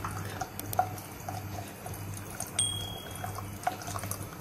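An egg frying in hot oil in a nonstick pan: a steady soft sizzle with scattered small pops and crackles.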